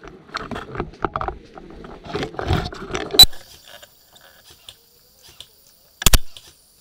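Rapid mechanical clicking and rattling, with one sharp, loud click about three seconds in, then a short double knock near the end.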